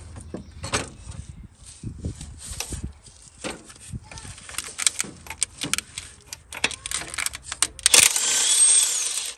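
Metal tools clicking and clanking as locking pliers and an impact socket are fitted to a Ford 2.3 four-cylinder's crankshaft pulley bolt. Then, about eight seconds in, a cordless impact wrench runs loudly on the bolt for about a second and a half, with a falling whine.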